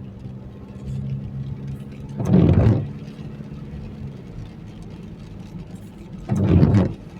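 Car interior with the engine running steadily, and the windshield wipers sweeping across the wet glass twice, about four seconds apart; each sweep is loud and lasts about half a second.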